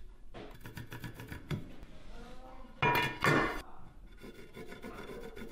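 Porcelain floor tiles being handled: light scrapes and clicks, then a loud ringing clink and rattle about three seconds in, as hard tile knocks against tile.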